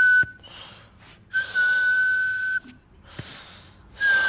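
Whistling: a steady, high, level note with a breathy hiss. It comes in long blasts, one ending just after the start, a full one of about a second, and another starting near the end.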